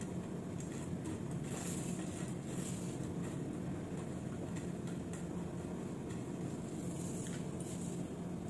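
Steady low background hum, with a few faint crisp rustles as crumbled fried onions are sprinkled by hand into a steel pot of chicken marinade.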